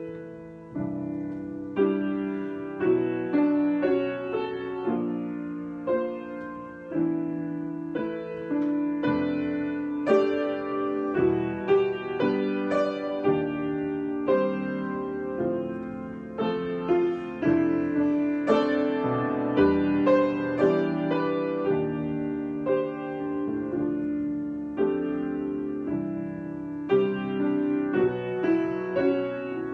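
Solo piano improvisation: notes and chords struck at a slow, gentle pace, each ringing and fading.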